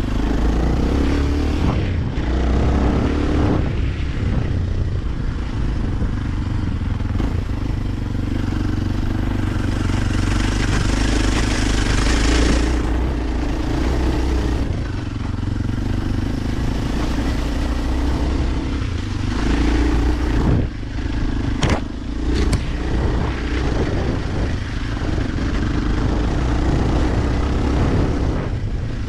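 Kawasaki KLX 230's single-cylinder four-stroke engine running under changing throttle while the dirt bike rides a rough dirt trail. A few seconds of louder hiss come about ten seconds in, and two sharp knocks about twenty-two seconds in.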